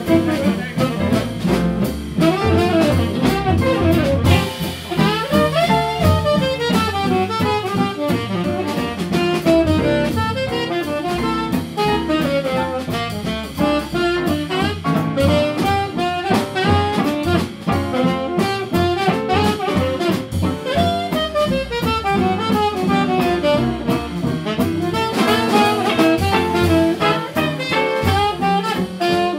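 Small swing jazz band playing live: the saxophone leads with a melodic line over piano, archtop guitar, upright bass and drum kit in a steady swing rhythm.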